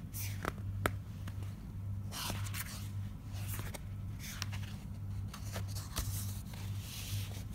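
Pages of a paperback picture book rustling and scraping as they are handled and turned, in a series of short crinkles and soft clicks, over a low, pulsing hum.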